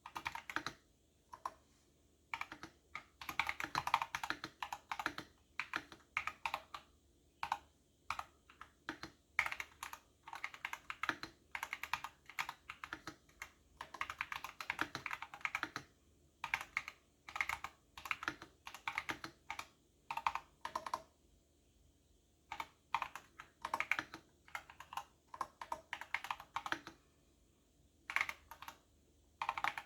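Typing on a computer keyboard in fast runs of keystrokes broken by short pauses, as in a typing test.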